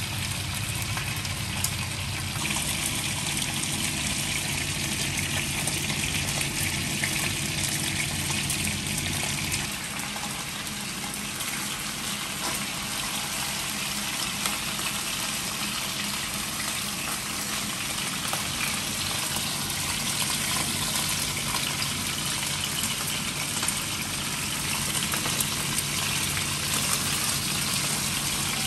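Chicken pieces sizzling in oil in a frying pan: a steady hiss with small crackles. A low hum underneath stops about ten seconds in.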